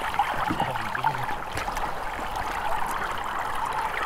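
Shallow river water rushing steadily around waders and an inflatable raft, with a few small splashes and knocks from people wading.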